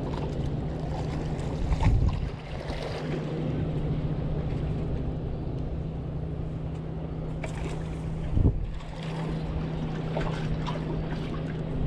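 A motorboat's engine running steadily as a low hum, with wind on the microphone. Two brief low thumps come about two seconds in and again about eight and a half seconds in.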